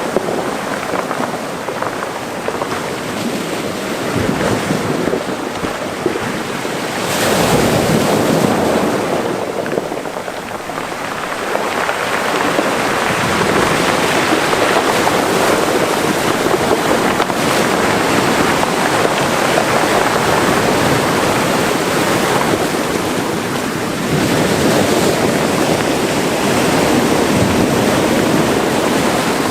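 Mediterranean sea waves washing into a cove, the surf swelling and ebbing in slow surges every few seconds.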